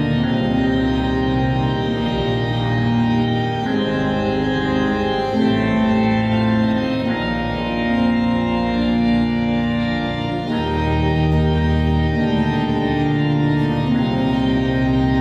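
Pipe organ playing slow, sustained chords over deep bass notes, the chords changing every couple of seconds.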